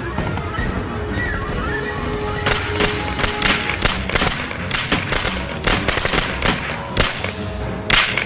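Bursts of automatic gunfire, many rapid shots that come thick and fast from about two and a half seconds in, with one especially loud shot near the end.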